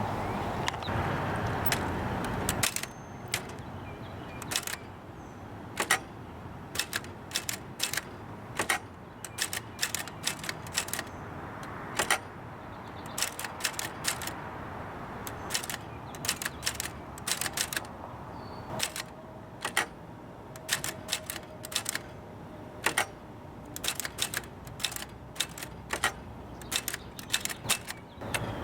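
Nippo Elgin Collegiate ultra-portable typewriter being typed on: sharp key strikes clacking irregularly, in uneven runs with short pauses between them.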